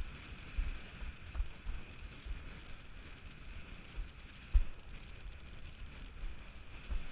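Windsurf board planing fast over choppy water: wind rumbling on the action-camera mic and a steady hiss of spray, with irregular dull thumps as the board slaps the chop, the hardest about halfway through.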